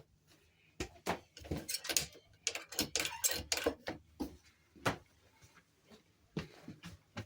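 Aircraft galley fittings being handled: irregular clicks, knocks and clatter, busiest in the first five seconds, with a last knock near the end.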